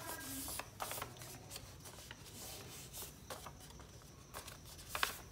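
A sheet of paper rustling and crinkling as it is handled and folded by hand into a paper airplane, with scattered light crackles and a sharper one near the end.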